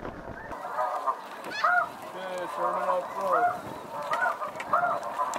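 A flock of snow geese calling, with many short, overlapping, high honks and a few lower calls mixed in.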